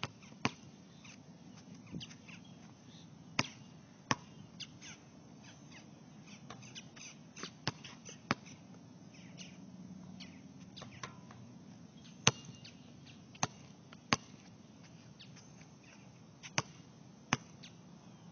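Basketball bouncing on an outdoor court during free-throw practice: about ten sharp single bounces, mostly in pairs under a second apart, with gaps of several seconds between them.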